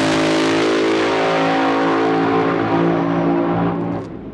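Drag race car's engine at full throttle, running hard as the car pulls away down the strip, with a steady high engine note that fades out near the end.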